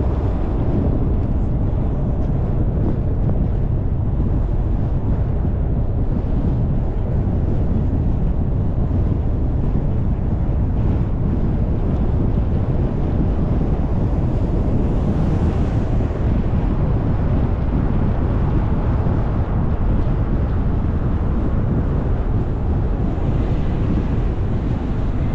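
Steady low rumble of road and wind noise from a moving car, with a brief swell of hiss about fifteen seconds in.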